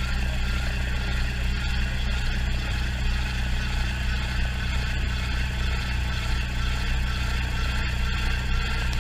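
RAF 2000 GTX-SE gyroplane's engine running steadily at low power, heard from inside the cockpit.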